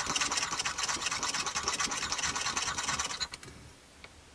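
A stirrer scraping and rubbing around inside a small metal tin of thick Humbrol enamel paint, stirring up the settled pigment. The scratching stops about three seconds in, leaving only a couple of faint clicks.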